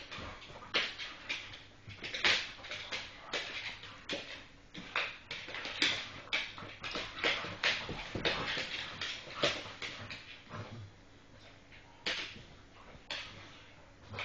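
Staffordshire bull terriers scuffling with each other: a run of short, irregular dog noises, several a second, with a brief lull about two-thirds of the way through.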